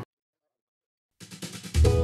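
Dead silence for about a second, then background music comes in: light percussion first, then drums and bass entering loudly near the end.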